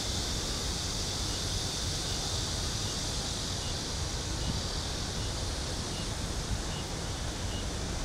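Outdoor ambience: a steady hiss with low wind buffeting on the microphone, and a faint short chirp repeating at an even pace.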